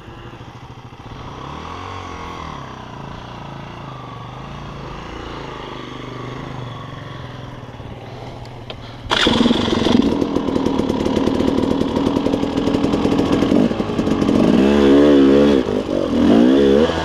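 KTM 300 two-stroke dirt bike engine working over rocky single track. It is fairly quiet at first, then about nine seconds in it jumps suddenly to loud, close engine noise, with the revs rising and falling quickly near the end.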